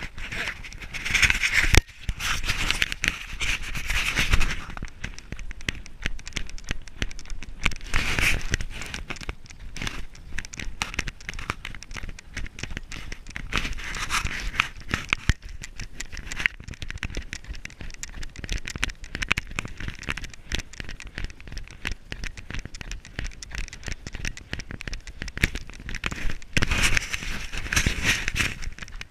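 Running footsteps crunching on packed snow, a dense steady crackle, mixed with clothing and gear rubbing against the camera microphone; a louder hiss comes and goes several times.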